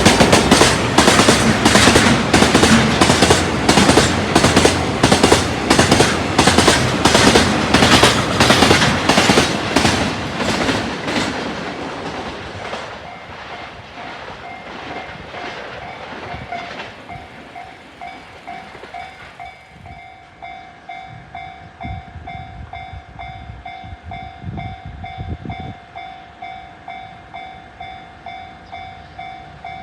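Freight train wagons running past, their wheels clacking over the rail joints about twice a second, loud, then fading away after about eleven seconds. A level-crossing alarm bell then rings on, a steady ding-ding about twice a second.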